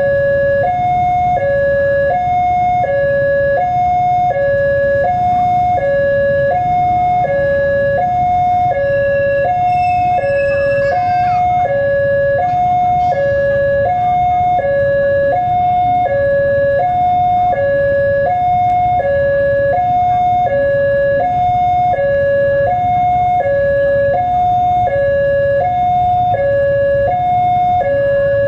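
Railway level-crossing alarm sounding its electronic two-tone warning, a lower and a higher tone alternating about every 0.7 s, signalling an approaching train.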